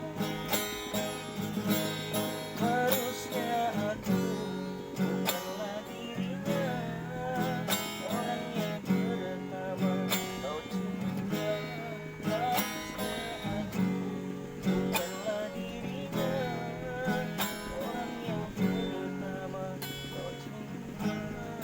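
Instrumental song music: strummed acoustic guitar over a steady beat and bass, with a wavering lead melody on top.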